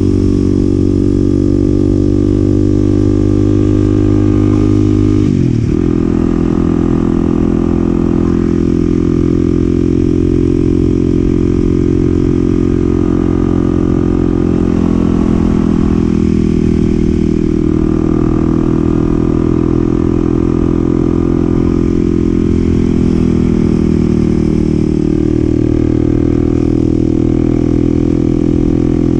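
Kawasaki KLX300SM's single-cylinder four-stroke engine running under way at a steady road speed. Its note dips sharply about five seconds in, then drifts slowly lower later on before picking up again near the end.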